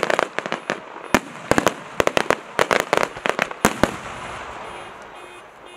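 Aerial fireworks going off in rapid volleys of sharp bangs and crackles, thinning out and dying down after about four seconds.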